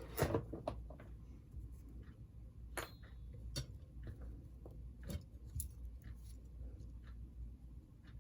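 Scattered small clicks and taps of hands working on a model locomotive's small parts and wiring, irregular and light, over a steady low hum.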